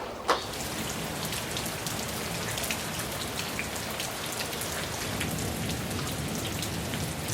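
Steady rain falling on a surface, with many separate close drops ticking through it. One sharp, louder tap comes about a third of a second in.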